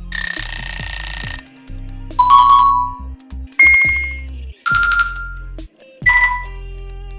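A run of about five short electronic alert sounds, one after another: ringing, bell-like dings and chimes, each fading out within about a second. A low pulsing background layer plays under them.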